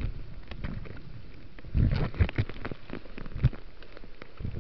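Cut leafy branches rustling and crackling right against the microphone, with low thumps of handling, a cluster of them about two seconds in.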